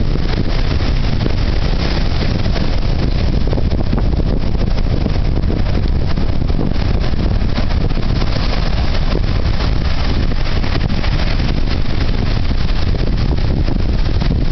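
Ocean swell breaking over rocks and washing through them, a steady loud roar of surf with a heavy low rumble.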